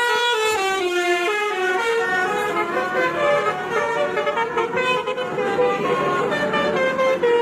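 Indonesian bus 'telolet basuri' musical air horn playing a quick melody, its several tones stepping from note to note every fraction of a second.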